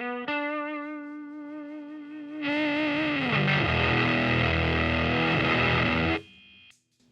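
Distorted electric guitar through the CA-108b's silicon fuzz: a held note with vibrato, then a louder note about two and a half seconds in that is bent down in pitch and sustained. The note is cut off abruptly about six seconds in.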